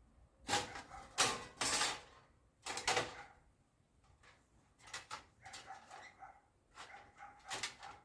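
An animal making several short, harsh bursts of sound in the first three seconds, then quieter, shorter cries.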